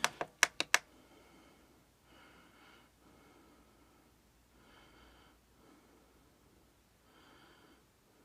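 Four sharp clicks of alarm clock buttons being pressed in quick succession, about a second in all. After them comes faint, slow breathing about every two and a half seconds.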